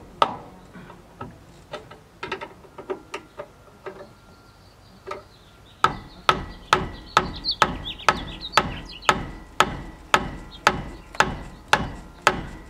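Hammer blows on a box wrench fitted to a shackle-bolt nut of a travel trailer's leaf-spring suspension, knocking the nut loose. Sharp ringing strikes come about two a second, give way to lighter, uneven taps and a quieter spell from about a second in, then resume as an even run from about six seconds in.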